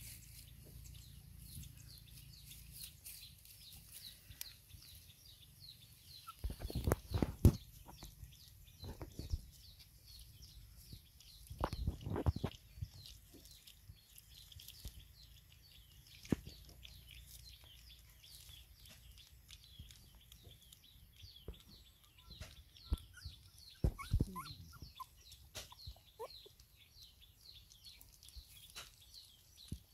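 Several puppies eating together from a bowl, with louder bursts of feeding noise about seven, twelve and twenty-four seconds in, over steady high chirping of birds.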